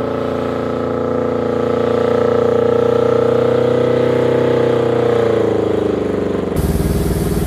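Smart car's swapped-in motorcycle engine held at high revs while the car slides sideways on ice. Its note climbs slowly, then falls away about five to six seconds in. Near the end a rougher, closer engine sound cuts in.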